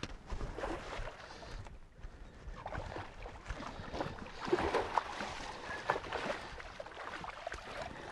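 Water splashing and sloshing against the side of a boat, with scattered knocks and clicks, as a hooked fish is fought close to the boat. The splashing is busiest around the middle.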